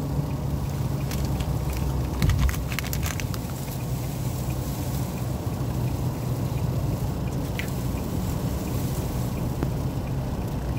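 Steady drone of a car driving through a sandstorm, heard from inside the cabin: engine and road noise with wind buffeting. A flurry of sharp ticks from windblown debris striking the windscreen between about one and three and a half seconds in, and another single tick later.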